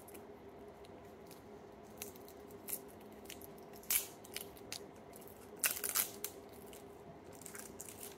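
Small plastic slime tub being opened by hand: a few scattered clicks and crackles of the plastic lid and seal, over a faint steady hum.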